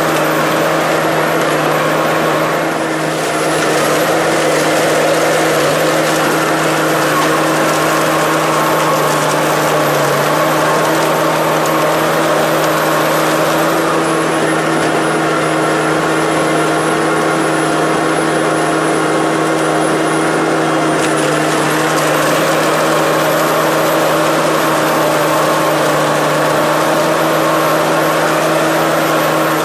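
Industrial tree shredder running steadily as it tears up logs and branches: a constant machine hum under a continuous grinding and splintering noise.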